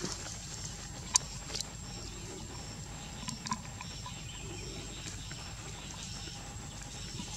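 Outdoor forest ambience: a steady hiss with a faint high chirp repeating at an even pace, and a few sharp clicks, the loudest about a second in and a small cluster a little past the middle.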